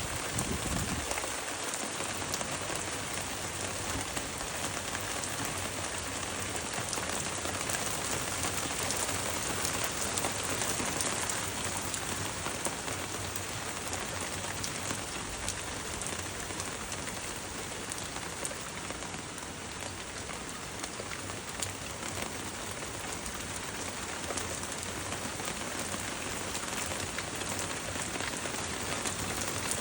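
Steady rain falling and pattering on surfaces, an even hiss with fine drop ticks throughout.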